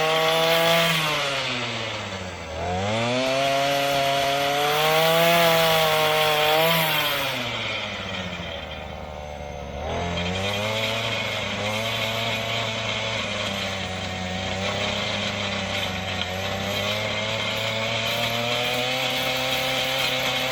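Earthquake MC33 mini tiller's 33cc two-stroke engine running hard. Its speed sags sharply about two and a half seconds in, recovers, sags again for a couple of seconds, then picks up about ten seconds in and runs steady.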